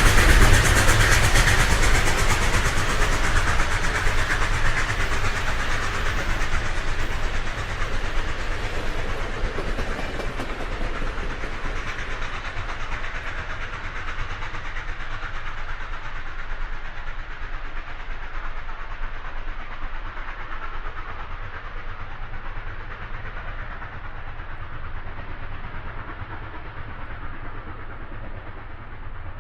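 Rumble of a passing train moving away, fading slowly over the whole stretch, with its higher tones dying out first.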